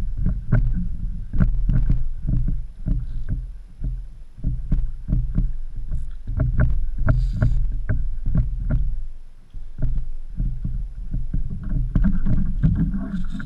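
Knocking and clicking on a plastic fishing kayak as the rod and reel are worked against a hooked fish: a heavy low rumble with irregular sharp clicks several times a second, easing briefly about two thirds of the way in.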